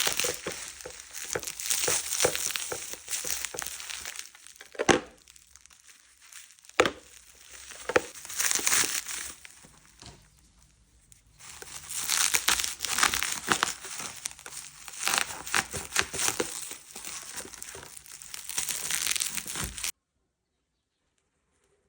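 Packaging crinkling and rustling as a gift box is unwrapped by hand, with two sharp knocks a couple of seconds apart early on and a brief lull midway. The sound cuts off abruptly near the end.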